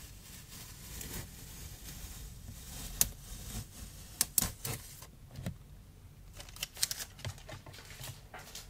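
Hands handling a sheet of gouache-painted cardboard on a wooden table: soft rubbing and rustling, with a few sharp taps and clicks, two close together about four seconds in and a cluster about seven seconds in.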